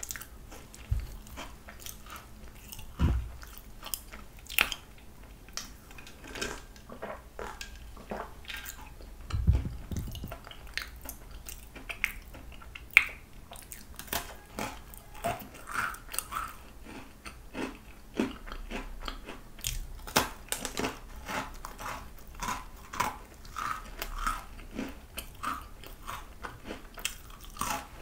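Biting and chewing small crunchy Kitty Cookies, with many short, irregular crunches.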